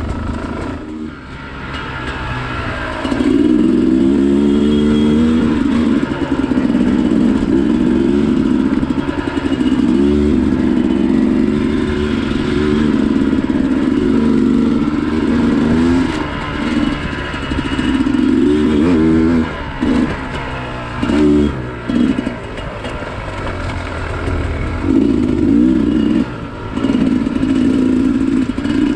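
Dirt bike engine being ridden along a trail, the revs climbing and falling over and over as the throttle is opened and closed, with several short drops in revs in the second half.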